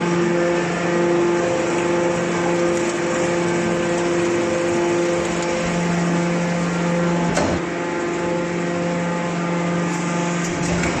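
Small hydraulic scrap-metal baler running, its motor and hydraulic pump giving a steady hum with a few held tones, and one sharp knock about seven seconds in.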